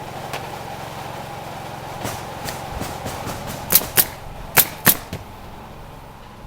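Roofing work on a shingle roof: a series of sharp knocks and cracks, the loudest four coming in two quick pairs a little past the middle, over a steady motor hum.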